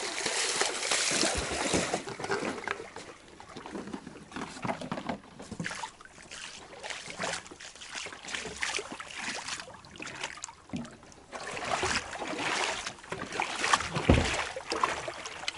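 Splashing footsteps wading through shallow river water, then footsteps and handling noise as someone moves along and into a motorboat, with a single thump about 14 seconds in.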